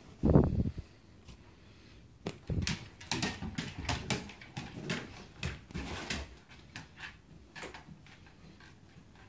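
A dog playing with balloons on a hardwood floor: a run of short clicks, scuffles and soft bumps, from claws on the boards and balloons knocked about. There is one loud thump about half a second in, and the activity thins out near the end.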